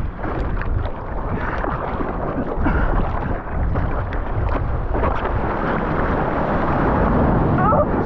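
Strong wind buffeting the camera microphone, mixed with rushing, splashing surf water as a wave is taken in rough, windy conditions.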